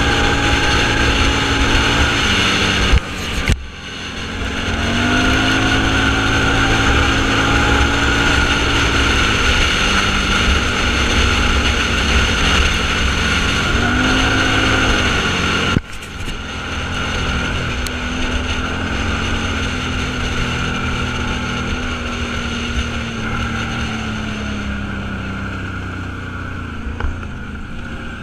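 Off-road vehicle engine running under way, its pitch rising and falling with throttle and gear changes. The sound cuts out sharply twice, once about three seconds in and again about halfway through.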